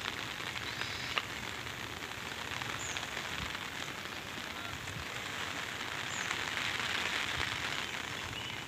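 Steady rain falling on the surface of a flooded pond, an even hiss.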